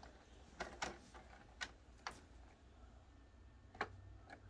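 Faint, scattered clicks and taps of die-cast toy cars against a plastic track playset as they are handled, about five separate clicks.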